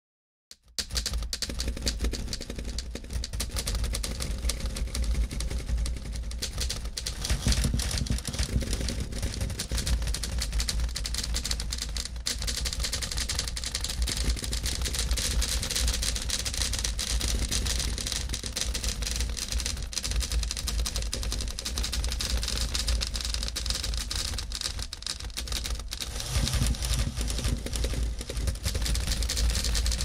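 Manual typewriter clattering: a dense, continuous stream of key and typebar strikes, starting about half a second in.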